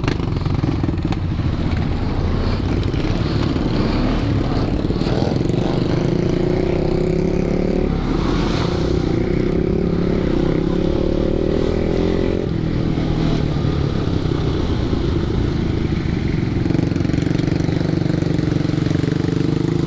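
Can-Am Renegade 1000 XXC ATV's V-twin engine running steadily on the trail, its note shifting about eight seconds in and again about twelve seconds in.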